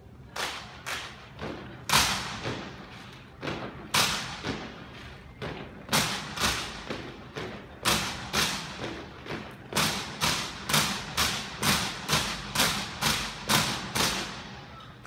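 Silent drill by a military drill team: sharp claps of rifles and boots striking in unison. A few scattered strikes come first, then loud ones every two seconds, settling into a steady beat of about two a second that stops just before the end.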